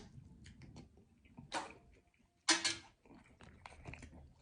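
Soft clicks and crackles of shellfish being handled and eaten close to the microphone, with two short louder noises about one and a half and two and a half seconds in.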